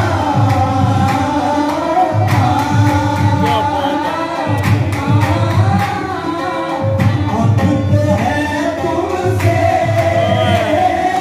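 Qawwali: male voices singing a melody over harmonium, with a steady rhythm of low drum beats and sharp hand claps.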